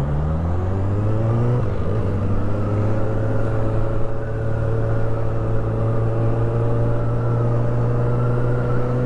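Honda CB1000R's inline-four engine with its stock exhaust pulling away under gentle throttle: revs climb, break briefly at a gear change a little under two seconds in, then rise slowly and steadily as the bike accelerates.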